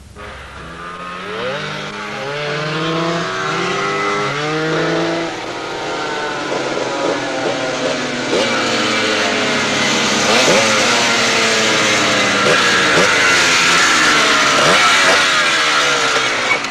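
A group of trail motorcycles riding toward the camera, several engines at once revving and changing up through the gears. They grow louder over the first few seconds, and there are sharp rising revs in the second half.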